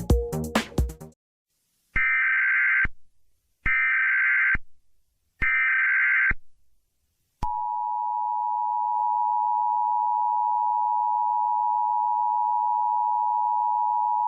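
Electronic music cuts off about a second in. Then come three one-second bursts of EAS SAME header data tones, followed about seven seconds in by the Emergency Alert System attention signal, a steady two-tone beep held without a break.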